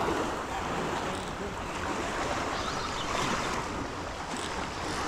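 Steady wash of water and wind, with wind rumbling on the microphone.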